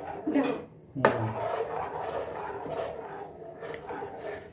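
A steel spatula stirring thick rice-milk pudding in a steel saucepan, scraping along the pan's bottom and sides. There are two sharp knocks against the pan, one at the start and one about a second in. The pudding is stirred constantly to keep it from sticking.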